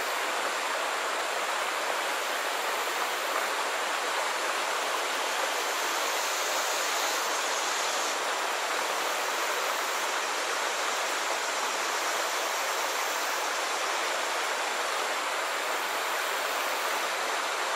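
Steady rushing of bayou water flowing over and around rocks in the shallows.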